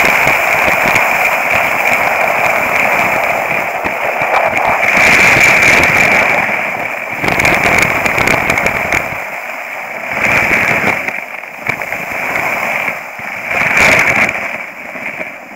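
Skis sliding and scraping over hard-packed snow, heard close up through a boot-mounted action camera, as a loud gritty crackle. After about nine seconds it breaks into a few separate scrapes and grows quieter as the skis slow to a stop.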